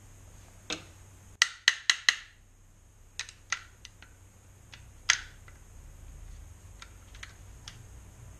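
A scattering of sharp plastic clicks and light taps from handling the car door's lock mechanism and wiring, with a quick run of four clicks about a second and a half in.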